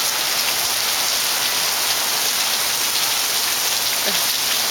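Steady rain falling on hard ground, an even dense hiss.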